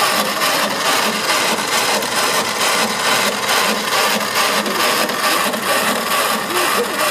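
Portable line boring machine cutting: a steady scraping, grinding noise with a regular pulse about three times a second.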